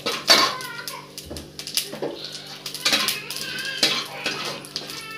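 A spoon scraping and clinking against a kadai (wok) while stirring cumin seeds and bay leaves in hot oil, with a faint sizzle of the frying spices between the strokes.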